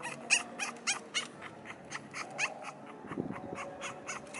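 French bulldog puppies squeaking and whimpering, a quick run of short, high squeaks several times a second.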